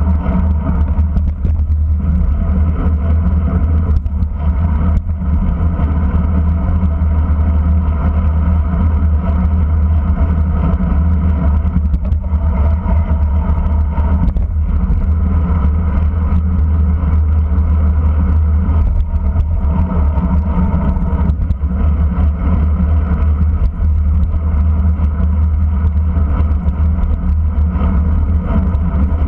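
Steady wind rush and road rumble on a bicycle-mounted camera as the bike rides at speed, heaviest in the deep low end.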